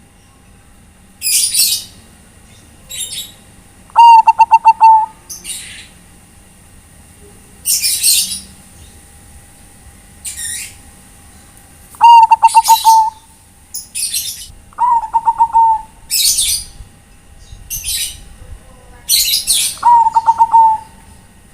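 Zebra dove (perkutut, Bangkok type) cooing: a short, rapidly pulsing coo, given four times, among many loud, high-pitched chirps.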